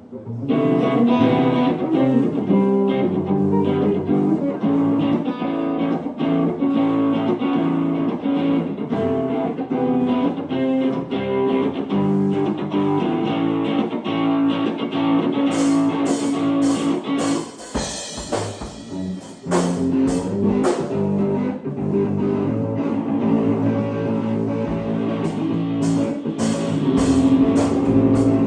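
A live band playing rock: electric guitar and bass over a drum kit, with cymbal crashes about halfway through and again near the end.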